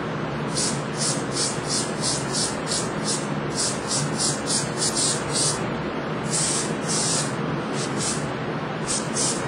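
Aerosol can of general-purpose spray adhesive sprayed in many short hissing bursts, several a second, with a couple of longer sprays in the middle. A steady background hum runs underneath.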